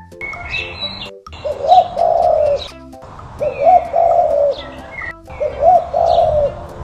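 Dove cooing: a low, soft phrase of a few notes lasting about a second, repeated three times about two seconds apart, with higher bird chirps between and over the coos.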